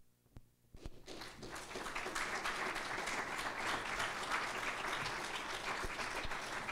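Audience applauding. The applause starts about a second in and builds to steady clapping.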